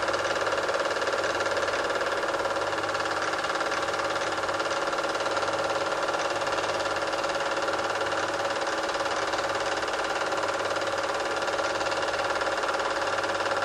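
Super 8 film projector running: a steady, unchanging mechanical whirr with a constant hum, as the silent film is played back for transfer.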